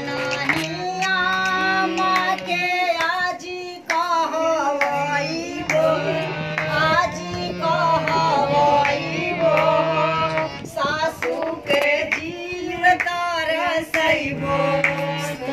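Women singing a sohar, the Bhojpuri folk song sung to celebrate a child's birth, with sharp percussive strikes under the melody.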